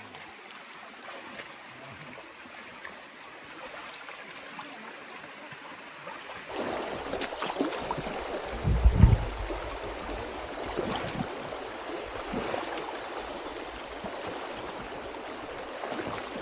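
Shallow rainforest river running over stones, with splashing as hikers wade through it. The water grows louder about six and a half seconds in, and a heavy low thump comes about nine seconds in. A steady high whine sounds throughout.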